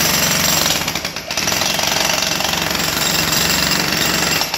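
Makita HM1306 electric demolition hammer running under load, its chisel hammering rapidly into concrete, with a brief dip about a second in. The hammering cuts off near the end.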